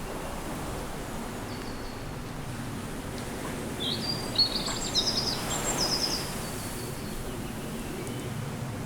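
Steady outdoor ambient noise, with a brief run of high, quick bird chirps and trills about midway.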